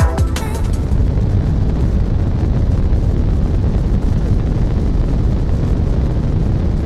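A steady, deep rumbling roar, a fire or eruption sound effect, taking over as the drum-and-bass music ends.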